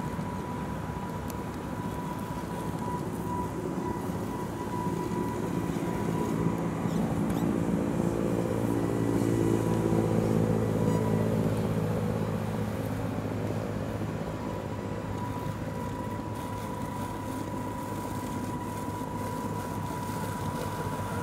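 A low, steady motor drone that swells toward the middle and then fades, over a steady high-pitched whine.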